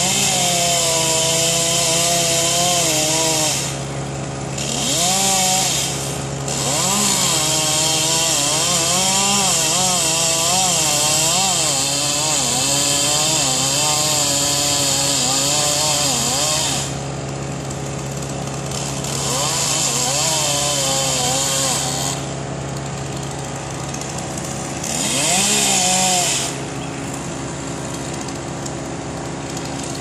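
Chainsaw running up in a tree during limb removal, revved and cutting in several bursts, the longest lasting about ten seconds, its pitch wavering as it bogs under load and dropping back to a lower idle between cuts. A steady low engine hum runs underneath throughout.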